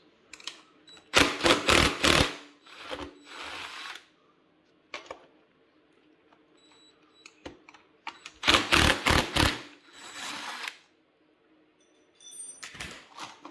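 A power tool run in two short bursts, about a second each, a few seconds apart, driving out the bolts that hold a motorcycle's toolkit bag on.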